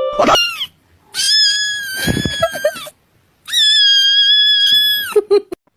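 A cat screaming in high, drawn-out cries: a short falling cry at the start, then two long held cries of about two seconds and a second and a half, each dropping in pitch at its end.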